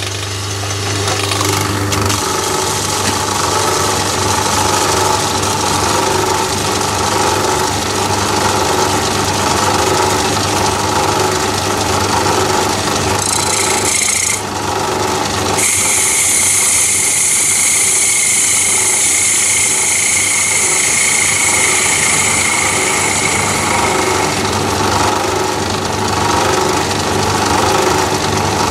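Metalworking lathe running with a steady motor and drive hum while a turning tool faces the end of an aluminium bar. About halfway through, a high hissing cut joins in for around ten seconds, then eases off.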